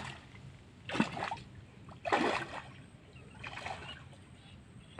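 Water splashing as someone wades knee-deep through a shallow muddy creek, paying out a fishing net: a few short splashes about a second apart.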